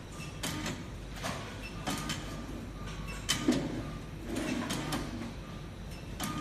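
RFID tag encoding and inspection machine running, its mechanism clicking and clacking repeatedly at an uneven pace as tags are fed and encoded one after another, with a few louder knocks.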